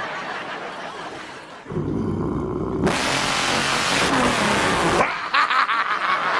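A man's voice imitating a big supercharged V8 truck engine. The engine revs hard starting about a second and a half in, with a loud hissing screech like spinning tyres over the middle couple of seconds that cuts off suddenly.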